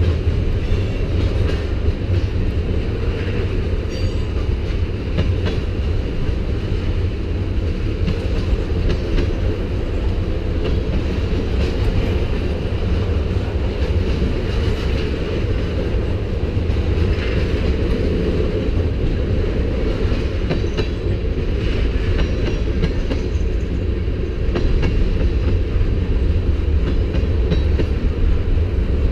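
Freight train rolling past on the mainline: a steady, loud rumble of cars and wheels on the rails, with scattered clicks from the wheels.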